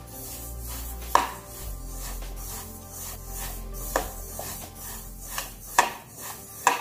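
Slotted steel spatula scraping through dry-roasting sesame seeds in a metal kadhai, with the rustle of the seeds and about five sharp knocks of the spatula against the pan, the loudest about a second in and near the end. Soft background music runs underneath.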